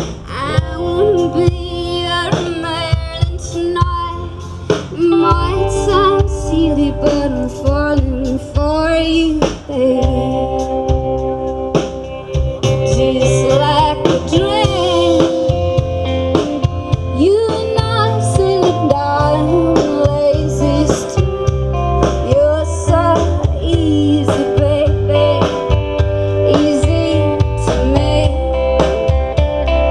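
Live band playing through PA speakers: a woman singing lead over guitars, bass and drums.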